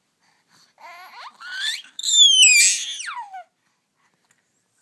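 A baby of a few months babbling in high-pitched squeals: a few short rising calls, then a louder one that falls in pitch and stops about three and a half seconds in.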